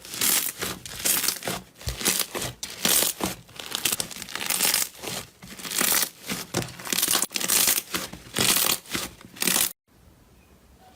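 Slime being squeezed and worked by hand, giving repeated crackling, crinkly bursts about once or twice a second that cut off abruptly near the end.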